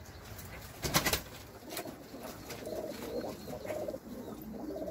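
Domestic tumbler pigeons cooing in their loft, a low warbling that goes on from about two seconds in. A short noisy burst about a second in.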